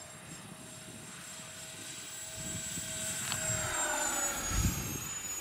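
Twin 50 mm 12-blade electric ducted fans of an RC A-10 Warthog jet whining as the model flies past. The whine grows louder and drops slightly in pitch about four and a half seconds in. A low thump comes near the end.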